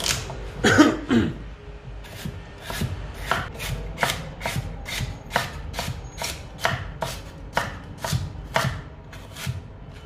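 Kitchen knife chopping food on a cutting board, steady sharp strikes about three a second, after a louder knock with a short ringing clatter about a second in.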